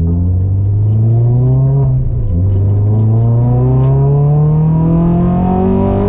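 Renault Clio track car's engine accelerating hard under load, its pitch climbing through a gear, dropping at an upshift about two seconds in, then climbing steadily again through the next gear.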